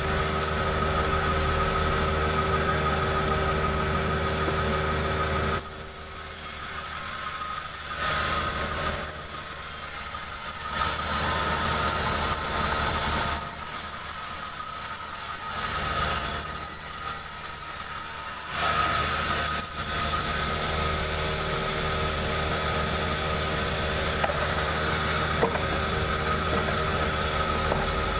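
Chainsaw running at high revs while ripping a jengkol log lengthwise. About six seconds in it eases off to a lower, uneven level with three short surges, then returns to full speed near the nineteen-second mark.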